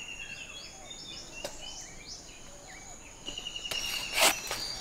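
Insects trilling steadily and birds chirping with short rising and falling calls. Near the end come a couple of sharp chops of a machete into a green coconut, the second one the loudest.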